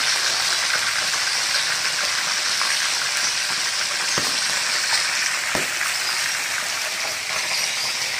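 Whole fish shallow-frying in hot oil in a pan, a loud, steady sizzle with two brief clicks about halfway through.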